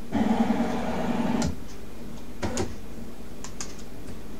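The Hercus PC200 CNC lathe's axis drive hums steadily for about a second and a half as the tool carriage traverses toward the material, then stops. After that come several short sharp clicks of keys being pressed on the control computer.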